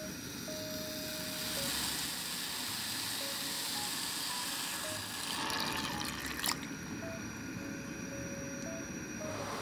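Granulated sugar poured onto sliced peaches in a pot with a soft, even hiss, then water poured in a thin stream, ending in a single sharp click about six and a half seconds in. Soft background music plays underneath.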